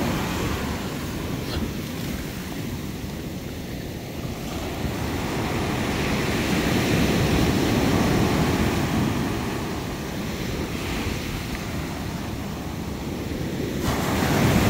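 Ocean surf breaking and washing up a sandy beach, swelling louder twice, the second time near the end, with wind on the microphone.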